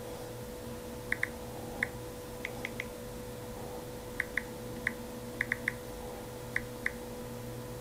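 Samsung Galaxy S6 on-screen keyboard clicks from the phone's speaker as a password is typed: about fourteen short, high ticks at an uneven pace, in small clusters, over a faint steady hum.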